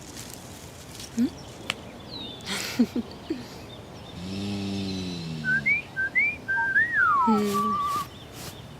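Cartoon sound effects: a few short clicks and a low falling tone, then whistled notes, a few short rising chirps, a long sliding drop in pitch and a wavering held note.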